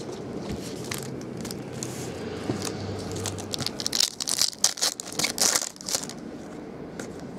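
Foil trading-card pack wrapper being torn open and crinkled by hand, with sharp crackling for a couple of seconds about halfway through as the cards are pulled out.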